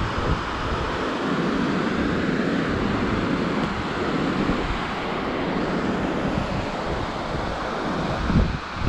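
Steady rush of falling water from Horsetail Falls, mixed with wind buffeting the microphone.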